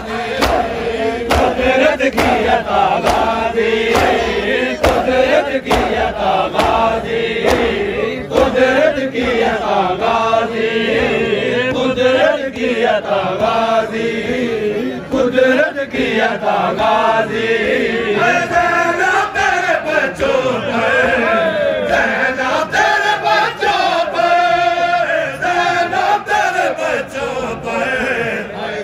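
A crowd of men chanting a nauha, a Shia lament, in unison, with rhythmic chest-beating (matam) slaps keeping the beat.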